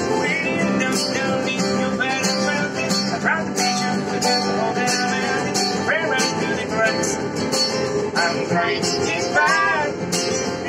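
Acoustic guitar and a small stringed instrument strummed together in a steady rhythm, with a voice singing along at times.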